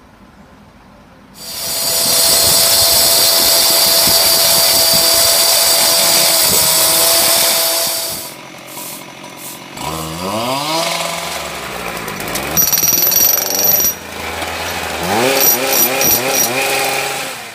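Road-repair power tools breaking out asphalt: a petrol cut-off saw and a breaker. About a second in, a loud steady grinding with a constant whine starts and runs for some six seconds. Later a small engine revs up twice, rising in pitch each time, with knocking in between.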